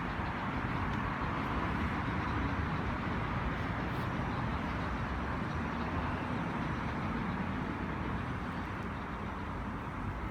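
Steady outdoor background noise, an even rush with no distinct events.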